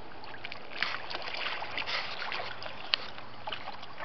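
Water splashing and lapping in small irregular splashes, with one sharp click about three seconds in.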